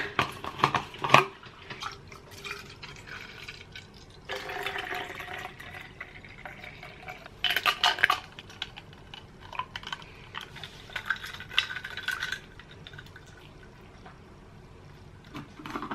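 Iced coffee being made in a glass jar: liquid pouring and sloshing for several seconds, with sharp clinks of glass and cutlery in the first second and again around the middle.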